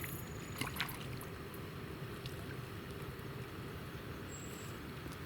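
Steady low outdoor background noise with a few faint clicks about a second in.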